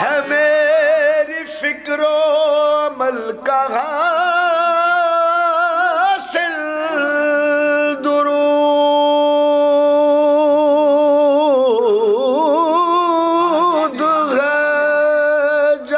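A man's unaccompanied voice singing a long, drawn-out melodic line of Urdu devotional poetry, with held notes that waver in a vibrato. The longest note comes in the middle, followed by a dip and rise in pitch.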